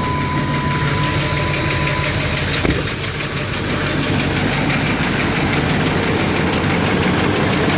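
LMM Duramax 6.6-litre V8 turbodiesel idling with a fast, regular ticking knock. The owner suspects a fault on cylinder 8, perhaps valve lash, a broken rocker arm or a bent pushrod, with injector balance rates off on cylinders 4 and 8.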